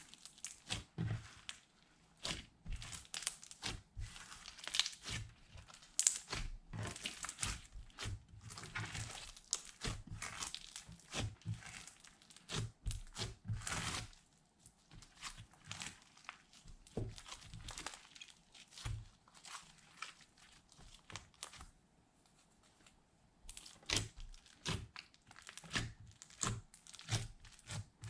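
Slime being squeezed, stretched and kneaded by hand, giving irregular sticky crackles and pops, with two short pauses partway through.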